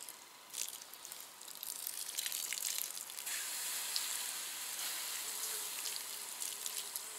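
Campfire embers being doused with water, hissing and sizzling with small crackles as the fire is put out; the hiss builds about two seconds in and then holds steady.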